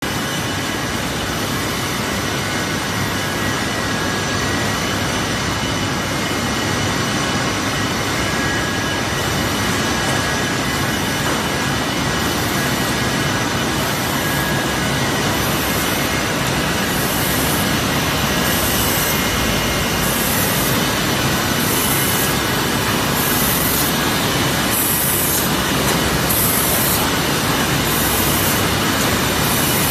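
SPC flooring bevel-edge painting line running: a steady machine hum and rush of noise with faint steady tones. In the second half, a high hiss pulses about once a second.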